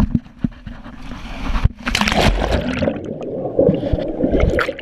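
A person plunging into water with a chest-mounted camera: knocks and thumps, then a loud splash about two seconds in, followed by muffled gurgling and churning water as the microphone goes under.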